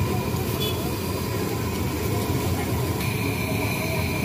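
A steady, dense low rumbling noise with no distinct events; a thin steady tone comes in about three seconds in.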